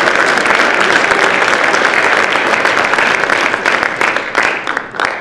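Audience applauding, a dense patter of many hands clapping that thins out over the last second or so to a few scattered claps and then stops.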